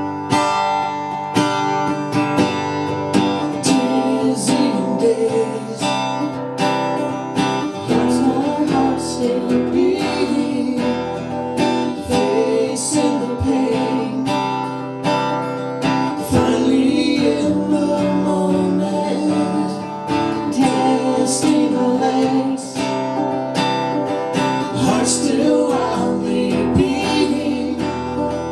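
Acoustic guitar played in a live song, with singing over it.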